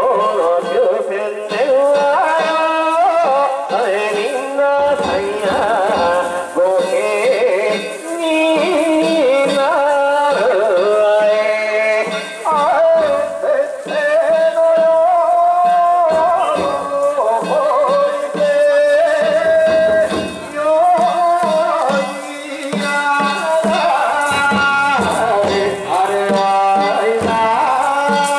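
Danjiri festival music: a wavering melody over repeated drumbeats.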